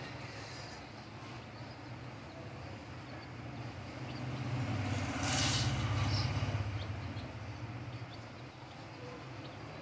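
A low, steady rumble that swells to a peak about halfway through, with a brief hiss at the loudest point, and faint light ticks scattered over it.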